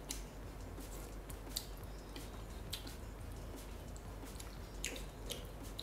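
A person chewing spicy glass noodles close to the microphone: scattered soft, wet clicks and smacks a few times a second, over a steady low hum.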